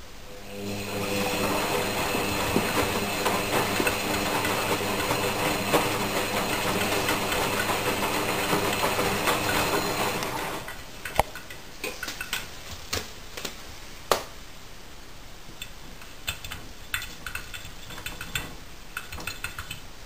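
Front-loading washing machine on its wash cycle: the motor hums steadily as the drum turns, then stops about ten seconds in, leaving a quieter stretch with scattered clicks and taps.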